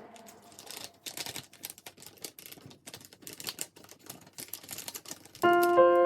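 A quick, irregular series of small clicks and taps. Background music starts near the end.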